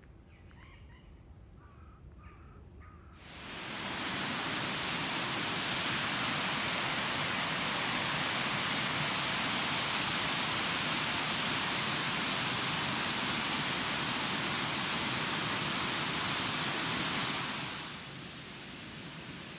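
Water rushing over a small stepped weir in a stream: a steady loud rush that comes in suddenly about three seconds in and drops to a softer rush near the end. A few faint bird chirps are heard before it starts.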